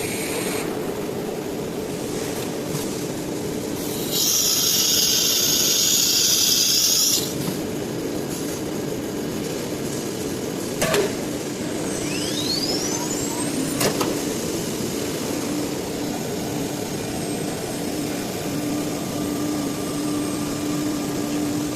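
Blue Elephant ELECNC1836 CNC nesting machine running, with a steady mechanical noise. About four seconds in a loud hiss of air lasts roughly three seconds; later come two sharp clicks and a rising whine, then a steady hum.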